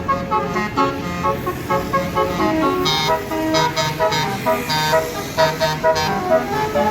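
Tour bus basuri telolet horn, a set of roof-mounted trumpet horns, playing a quick melody in stepped notes, several notes a second.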